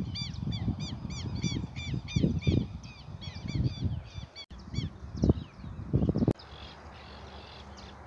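Birds calling in a fast run of short, arched notes, about three a second, fading after about four and a half seconds, over low, uneven rumbling noise.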